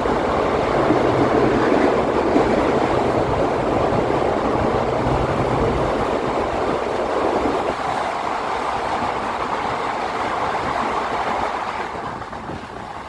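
Passenger train running along the track: steady wheel-and-rail noise with a low hum. It eases off near the end as the train slows into a station.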